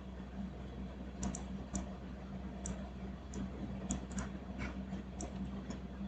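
Computer mouse and keyboard clicking: about a dozen short, irregularly spaced clicks over a low steady hum.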